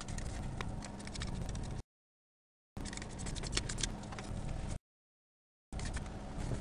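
Aluminium foil being handled and pressed onto a model airplane fuselage: light crinkling and rubbing, with small clicks, over a steady low hum. The sound cuts out to dead silence twice, for about a second each time.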